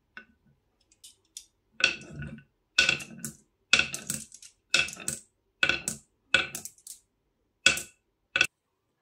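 White marbles dropped one at a time into the top pocket of a carved wooden marble-run slope, each landing with a sharp clack against the wood and the marbles already lying there. About nine clacks over the second half of the clip, after a few faint ticks.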